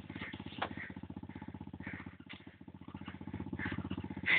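Quad bike (ATV) engine idling with an even, rapid low pulse.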